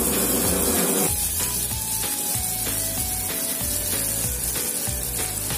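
Butter sizzling as it melts in a hot pot, a steady hiss. A simple background music melody comes in about a second in.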